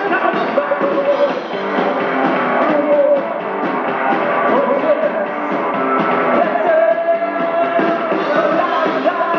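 Live rock and roll band playing, with an upright double bass and a voice singing over it.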